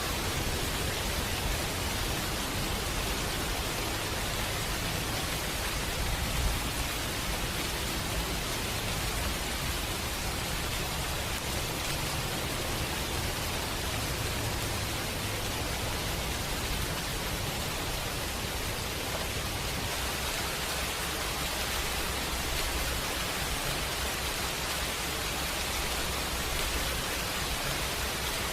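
Steady rainfall, an even hiss of rain with no change.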